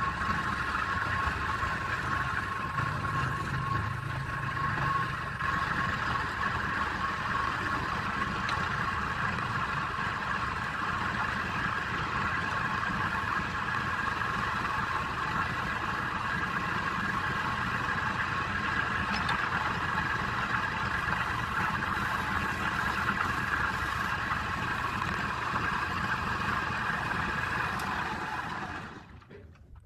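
Woodturning lathe running steadily with a constant whine, cutting off near the end.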